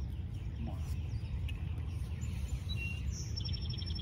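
Outdoor ambience: a steady low rumble, with a few short high bird chirps near the end.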